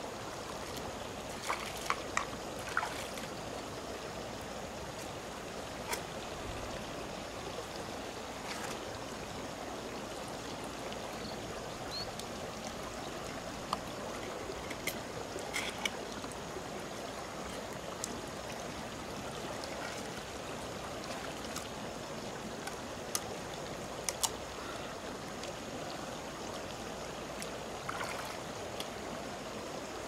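Steady rush of flowing stream water, with scattered sharp clicks from shells being handled and opened.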